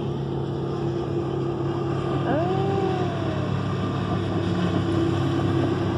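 Motorboat engine running at speed: a steady drone over the hiss of water that slowly grows louder.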